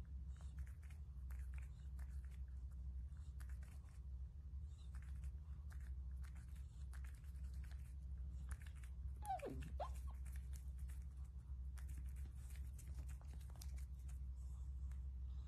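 Pet otter nibbling and licking at its own paws: a scatter of small wet clicks and crunches, with one short squeak about nine seconds in, over a steady low hum.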